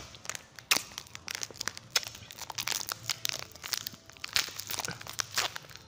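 Plastic wrapper of a Nabati wafer-cake pack crinkling and tearing as it is pulled open by hand and with the teeth, a run of irregular sharp crackles.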